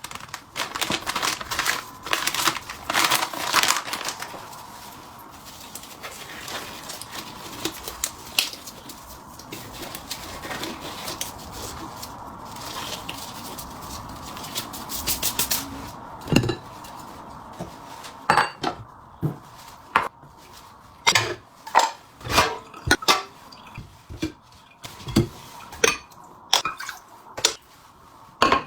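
Metal pots, bowls and ladles clattering against each other, with a faint ringing, dense for the first few seconds and then softer handling. About halfway through, a run of sharp, separate knocks sets in, one or two a second.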